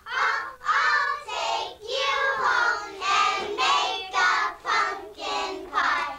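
Young girls singing a song together, each syllable held in a steady, even beat.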